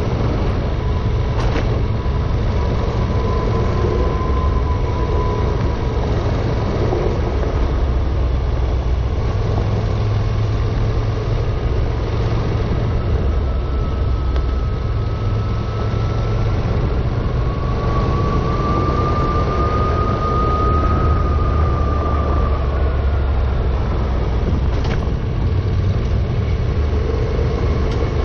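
Honda NC700X's parallel-twin engine running steadily at low speed on a gravel forest road, under a constant rush of tyre and wind noise. Two brief sharp ticks, one about a second in and one near the end.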